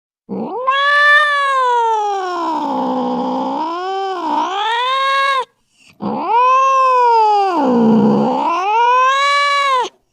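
Angry domestic cat caterwauling: two long, drawn-out yowls, the pitch sinking and rising within each, with a short break about halfway through.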